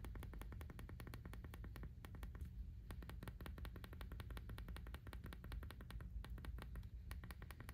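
iPhone 15 Pro volume buttons pressed over and over through the raised button covers of a clear Mous Clarity case: faint, quick clicking, several clicks a second, over a low steady hum.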